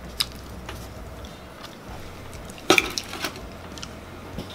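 A table knife and dishes clinking on a tabletop: a light click just after the start, then a quick cluster of sharp clinks about three seconds in.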